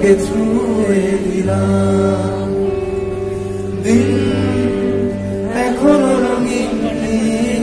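Live band music with electric guitar and keyboards playing long held notes over a low bass note, and singing that comes in near the start and again about four and six seconds in.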